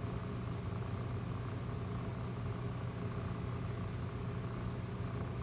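Steady low mechanical hum with a few fixed low tones, unchanging throughout.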